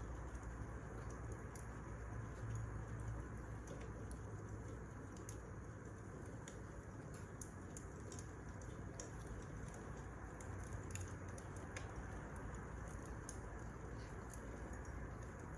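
Wood fire crackling: a steady low rush of burning with irregular sharp pops and snaps scattered throughout.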